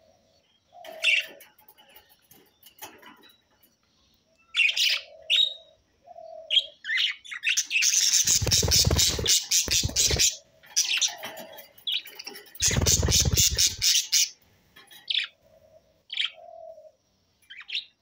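Budgerigars chirping and warbling in short scattered calls. Twice, about eight and thirteen seconds in, a budgie beats its wings rapidly on the perch in a loud flurry lasting a second or two, the loudest sound here.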